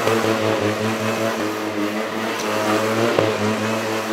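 GasGas trials motorcycle engine running at steady, raised revs, its pitch rising and dipping slightly as the bike is ridden slowly. A single sharp click about three seconds in.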